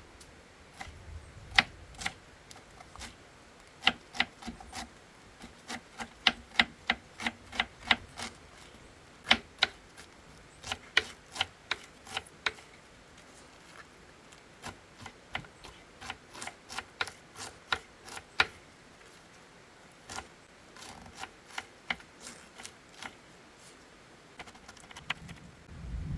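Knife chopping on a cutting board: runs of quick, sharp knocks, a few a second, broken by short pauses.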